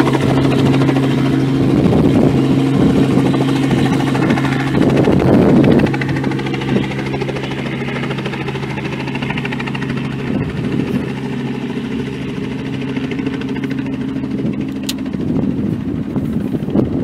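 Robinson R44 helicopter hovering low and moving off, its piston engine and rotors making a steady drone. The drone drops in loudness about six seconds in as the helicopter draws away.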